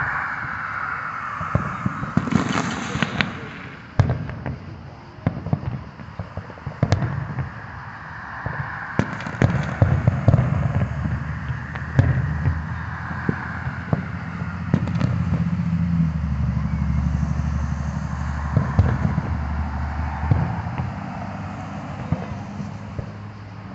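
Aerial fireworks shells bursting at a distance: sharp bangs and crackles at irregular intervals, several a second at times. A steady low rumble runs underneath through the middle.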